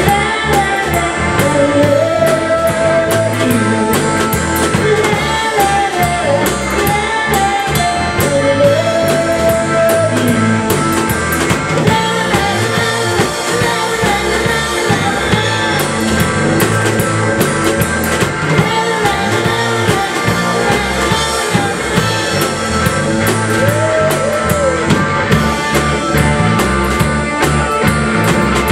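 Live rock band playing: lead vocals over electric guitar and a drum kit keeping a steady beat. The singing comes mostly in the first third and briefly again near the end, with the band playing on between.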